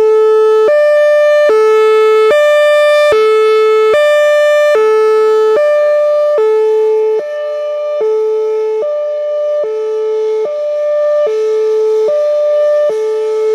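Whelen Vortex R4 outdoor warning siren sounding its Hi-Lo tone: a loud two-note wail alternating between a lower and a higher pitch, about a second per note. It starts abruptly, and the loudness swells and dips slightly from about halfway through.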